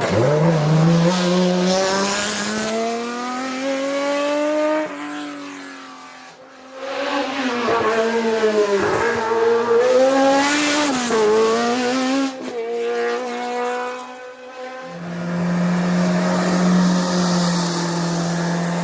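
Historic racing car engines at full throttle on a hillclimb, revving up through the gears with several quick drops in pitch at the shifts. For the last few seconds a steady engine note holds.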